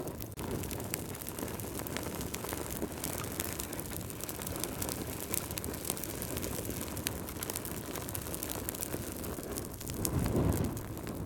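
Wood fire burning in a fireplace: a steady low rumble of flames with frequent small sharp crackles and pops from the logs, and a brief louder whoosh of flame near the end.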